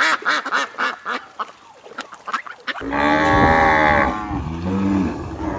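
Ducks quacking in a quick series of short calls. About three seconds in, a cow lets out one long, loud moo.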